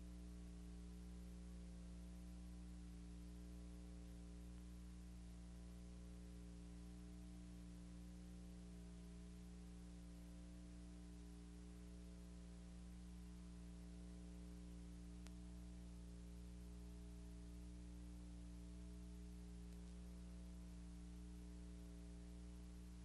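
Near silence: a faint, steady low hum under light hiss, with nothing else happening.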